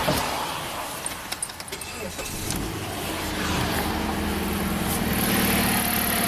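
Keys clicking and jangling at the ignition, then the 2007 Jeep Compass four-cylinder engine starts about three seconds in and settles into a steady idle, running on a freshly repaired cylinder 1 ignition coil harness that was the cause of its intermittent misfire.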